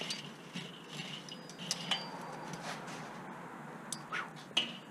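Metal tongs clinking and scraping against a Weber kettle grill's charcoal grate and lit coals: scattered sharp clinks, some with a brief metallic ring.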